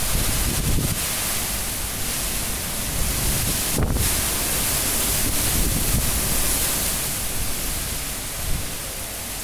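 High winds of a super cyclone at gale force: a steady rush of wind with low gusts that swell near the start, again about four seconds in and around six seconds, then ease slightly toward the end.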